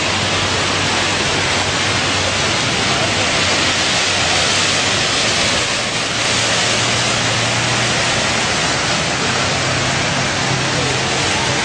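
Ocean surf rushing on the beach with wind on the microphone: a steady, loud rushing noise with a faint low hum underneath.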